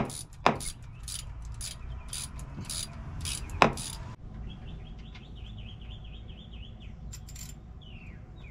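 Ratchet wrench clicking in repeated strokes, with a few sharp metallic knocks among them; the clicking stops about four seconds in, and after that birds are chirping.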